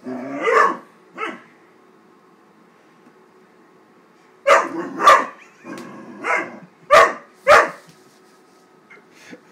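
13-week-old Great Dane puppy barking in agitation at a paper bag: two barks at the start, then after a pause a quick run of about six loud barks, and a faint one near the end.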